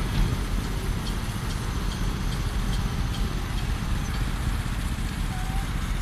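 Steady low engine rumble of construction machinery at a concrete pour, with a run of light ticks in the first few seconds.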